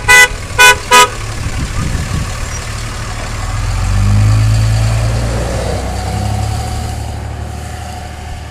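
Three short vehicle horn toots in the first second, honks of support for the strike picket, then a pickup truck's engine and tyres passing close, swelling to its loudest about four seconds in and fading away.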